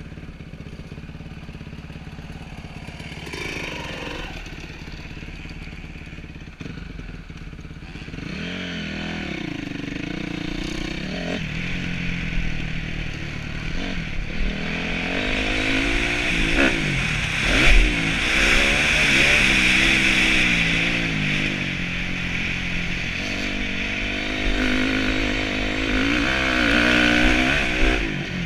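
Dirt bike engine revving up and falling back again and again while riding a motocross track, quieter for the first several seconds and louder in the second half.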